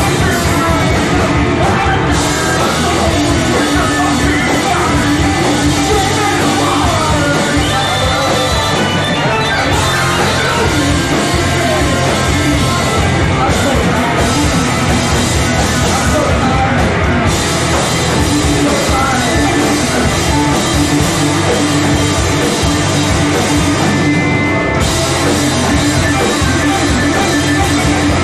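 A rock band playing loud and live, with drums, guitars and sung vocals.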